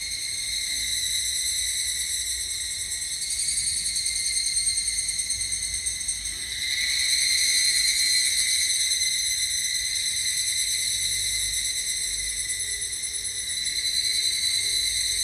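A steady, high-pitched buzzing drone with overtones, swelling louder around the middle and again near the end.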